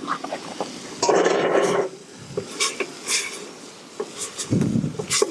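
Metal cookware being handled: a skillet scraped and set down, with a rasping scrape about a second in followed by several clinks and knocks.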